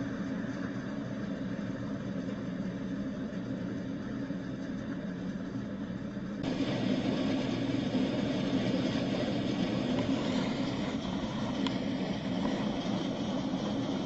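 Steady storm noise of hail and rain falling into standing water. About six seconds in it changes abruptly to a louder, fuller steady rush.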